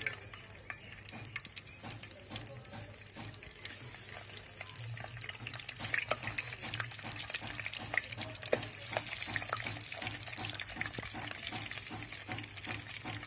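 Spice-coated boiled eggs frying in hot ghee in an aluminium pot: a steady sizzle with many small crackling pops as the eggs are added one by one.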